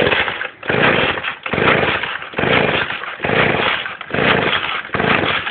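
Two-stroke chainsaw engine on a homemade scooter being cranked over to start it: about seven quick, noisy bursts, each under a second, with short breaks between.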